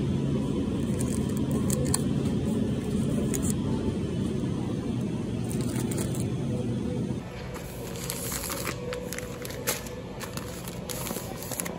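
Plastic-wrapped groceries crinkling and rustling as they are picked up and dropped into a wire shopping cart, over a steady low store background noise. About seven seconds in the background drops and a quick run of sharp rustles and clicks follows.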